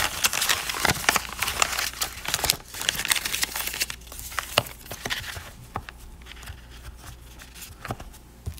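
Paper rustling and crinkling as an instruction booklet and paper lining are handled in a cardboard pen box, busy for about the first four seconds, then a few light taps and clicks as the box is moved.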